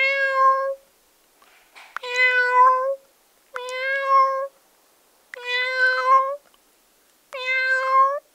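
Domestic cat meowing five times, each meow under a second long, about every two seconds, each holding a steady pitch and rising slightly at the end.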